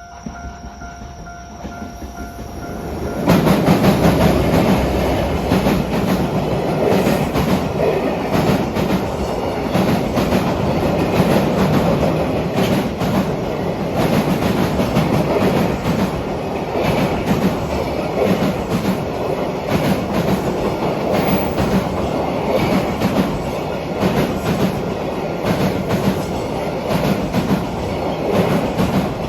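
A train passing close by, loud and steady for over twenty seconds, its wheels clattering over the rail joints. Before it comes on, about three seconds in, a few steady tones are heard; they stop as the train arrives.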